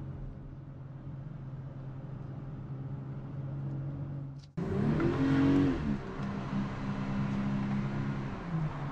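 BMW X3 M40i's 3.0-litre turbocharged inline-six, heard from inside the cabin, running steadily at a low, even pitch while cruising. About four and a half seconds in it cuts out for an instant and comes back louder, its pitch rising and falling as the car accelerates. It then settles to a steady run, with a drop in pitch near the end.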